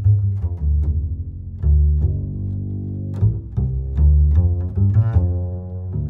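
Background music with a deep, prominent bass line, its notes starting sharply several times a second.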